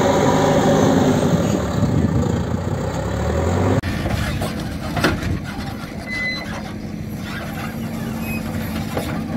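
JCB backhoe loader's diesel engine working under load as the machine pushes soil, rising in pitch near the third second. After an abrupt cut about four seconds in, it runs steadily and more quietly as the backhoe digs, with a sharp knock about a second later.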